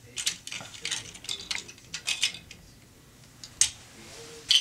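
Large plastic toy building blocks clicking and clattering as they are handled and fitted together: a quick run of clicks at first, then a few scattered ones and a louder clatter near the end.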